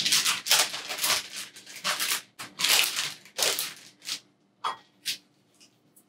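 A bag of bonito flakes crinkling and rustling as it is handled and the flakes are shaken out into a bowl: a dense run of rustles that thins to a few short, faint ones in the last two seconds.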